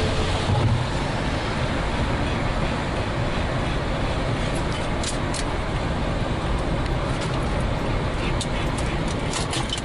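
Steady running noise of a moving vehicle, an even rush of engine and wind or road noise, with a few light clicks in the second half.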